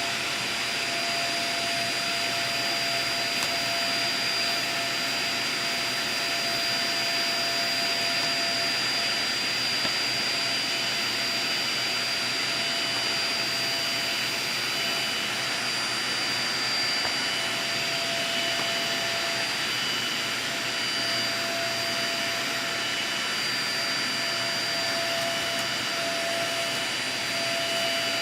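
Dyson vacuum cleaner running steadily: a constant rush of air with a steady motor whine.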